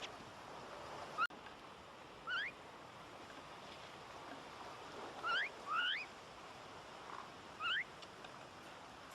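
Common myna giving five short, rising whistled calls at irregular intervals, over a steady background of wind or surf noise.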